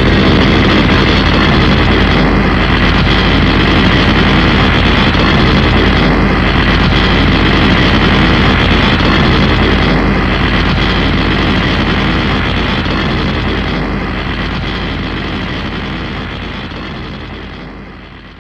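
Super Mechagodzilla sound effect: a loud, steady mechanical drone with a deep hum, like a large engine or thrusters, pulsing slightly about every four seconds. It fades out over the last few seconds.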